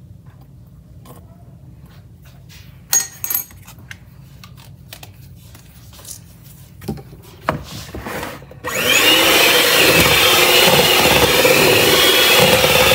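A few light knocks and clicks of kitchen utensils, then about two-thirds of the way in an electric hand mixer switches on suddenly and runs steadily with a whine, its beaters whirring through cake batter in a bowl.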